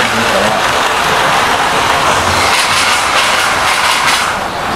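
Model train running on the layout's track: a loud, steady whirr and rattle of the locomotive's motor and wheels on the rails, easing briefly near the end.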